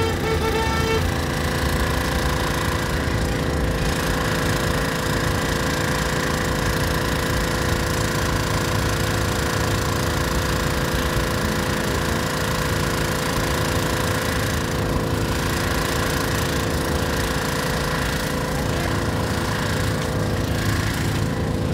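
Portable gasoline generator running steadily at constant speed, giving an even engine drone with a hum of several steady tones.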